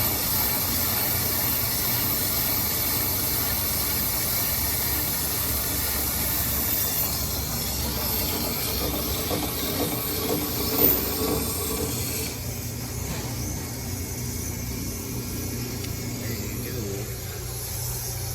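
Brake lathe machining a front brake rotor from a 2020 Buick Enclave: a steady motor hum under a hiss from the cutting bit, whose high-pitched part drops away about twelve seconds in. The rotor is being resurfaced because it has warped.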